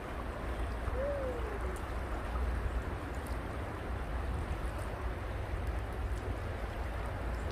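Shallow river flowing over rocks: a steady, even rushing.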